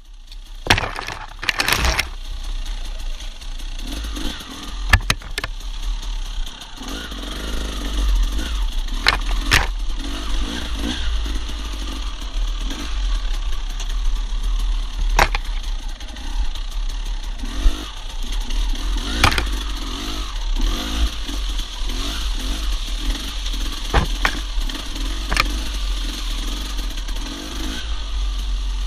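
Dirt bike engine running and revving up and down as the bike picks its way along a narrow trail, with a number of sharp knocks and slaps scattered through.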